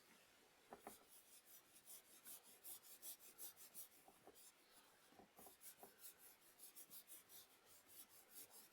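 Faint scratchy rubbing of oil paint being stroked onto a canvas in quick back-and-forth strokes, several a second.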